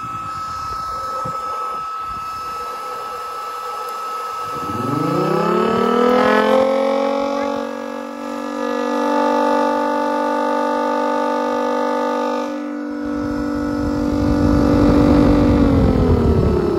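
3D-printed miniature Thunderbolt 1003 siren model, its chopper fed by a small air-mattress pump as the blower, winding up about four seconds in to a steady multi-tone wail over a steady high whine. A low rumble joins about two-thirds of the way through, and the siren starts to wind down near the end.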